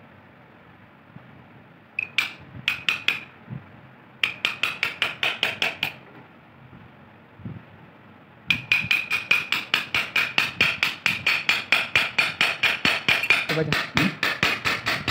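Rapid metal-on-metal tapping: pliers striking the top of a steel rod set against a rusted, stuck ball bearing in a ceiling-fan housing, driving the bearing out. Each strike rings with a high tone. The strikes come as a short run about two seconds in, another about four seconds in, and a long fast run of about six a second from about eight and a half seconds on.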